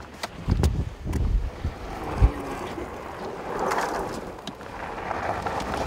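Camera handling noise: dull bumps and a few clicks as the camera is jostled, the sharpest a little past two seconds in. Then a rushing noise like wind on the microphone swells up about halfway through and again near the end.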